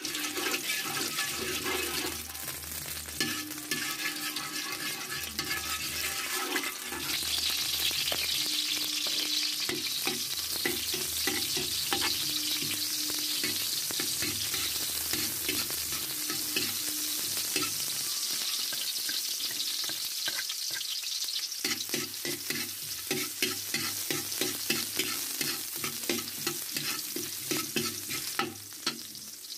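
Chopped onion and garlic sizzling in hot oil in a wok, sautéing, with a metal spatula scraping and clicking against the pan as it stirs. The sizzle grows louder about a quarter of the way in.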